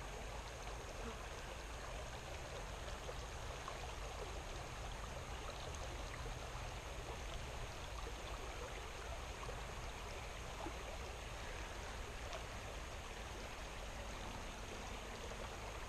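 Small stream flowing steadily.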